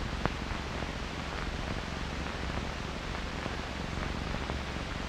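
Steady hiss of an old film soundtrack, with two faint clicks at the very start.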